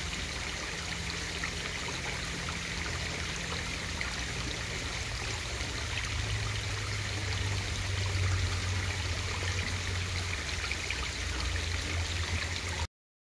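Steady rush and crackle of pond water heard through a submerged camera, with a low hum underneath that swells slightly partway through; it cuts off suddenly near the end.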